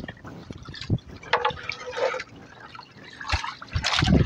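Seawater lapping and splashing against the hull of a small fishing boat in irregular splashes, louder near the end.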